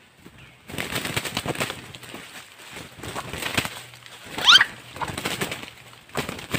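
Trapped red junglefowl rooster thrashing and beating its wings in dry leaf litter, in rapid repeated flurries, with one loud rising squawk about four and a half seconds in.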